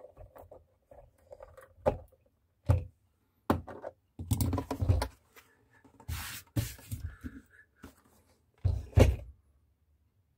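Knocks and thunks of the induction cooktop's plastic casing being handled and set down on a workbench: a string of separate knocks, with the loudest thump about nine seconds in.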